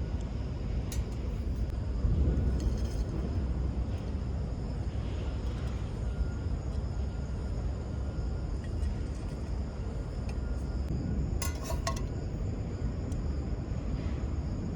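Steady low rumble of outdoor background noise, with a short cluster of light, ringing clinks about eleven and a half seconds in.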